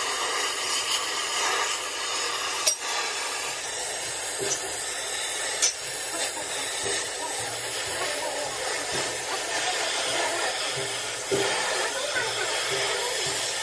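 Steady hissing workshop noise from metal repair work, with two sharp clicks about three seconds apart.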